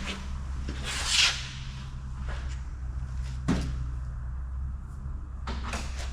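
A few separate knocks and scraping handling noises, the loudest about a second in and a cluster near the end, over a steady low hum.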